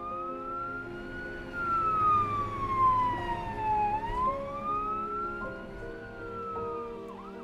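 Emergency vehicle siren wailing, rising and falling slowly about twice, over soft background music with held notes.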